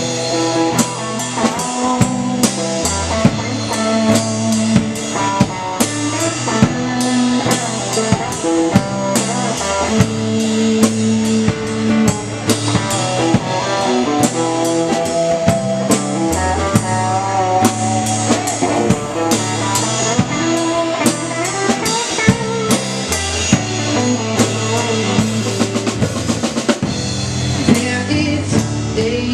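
Live rock band playing an instrumental break: drum kit with snare and bass drum, bass guitar and guitar, no singing.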